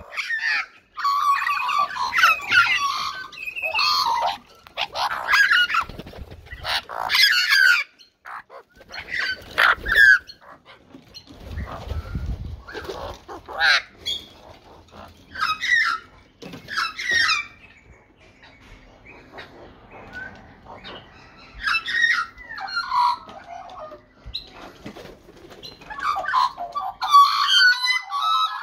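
Several Australian magpies calling and squawking over one another, a busy stretch of calls that thins out in the middle and builds again near the end.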